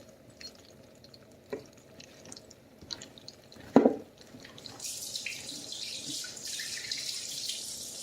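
A few knocks against a saucepan, one much louder just before four seconds in, then from about five seconds a steady hiss as sugar goes into melted butter in the pan.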